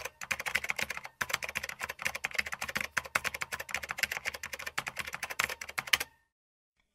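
Fast typing on a laptop keyboard: a quick, uneven run of key clicks that stops shortly before the end.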